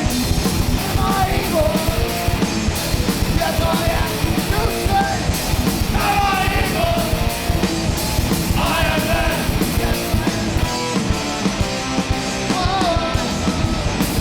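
Punk rock played loud by a band, with fast, dense drumming and yelled vocals that come in several times.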